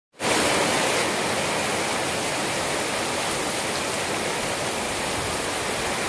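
Heavy rain pouring steadily onto wet grass, mud and puddles, a dense, even hiss.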